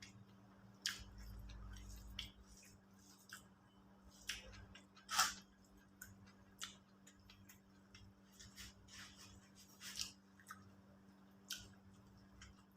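Faint, irregular clicks and smacks of someone eating, with a sharper click about five seconds in, over a steady low hum.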